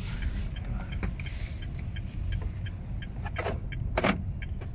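A car's indicator relay ticks steadily, about three ticks a second, inside the cabin, over the low hum of the idling engine. There is a sharp click about four seconds in.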